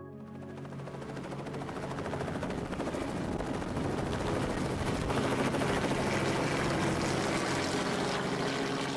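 Robinson R44 helicopter flying low past, its rotor blades chopping rapidly over the engine's note, growing louder over the first few seconds as it comes close and then holding steady.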